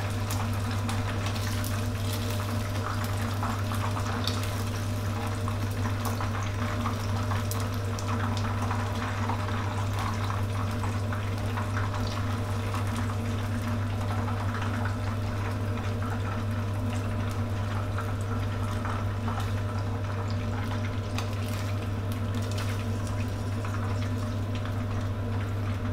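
Deep-frying oil bubbling and crackling in a pan beneath fried chicken wings draining in a wire skimmer, the heat just switched off; the crackling thins out a little near the end. A steady low hum runs underneath.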